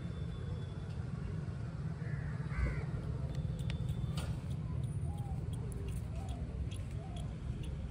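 Crows cawing, a harsh call about two and a half seconds in, with a few fainter calls after it, over a steady low rumble.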